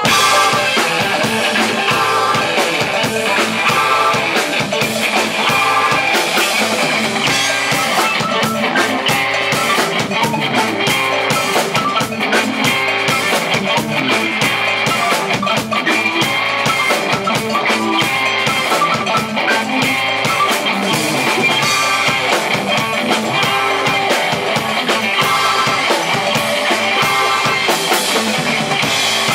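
Live instrumental mod-jazz band playing an upbeat groove: Hammond-style organ from the keyboards, electric guitars and a drum kit with a steady beat.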